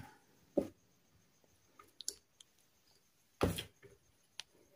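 A few faint, scattered clicks and soft knocks from hands handling an insulated electrical wire and a digital voltage tester, with one louder, brief rustle about three and a half seconds in.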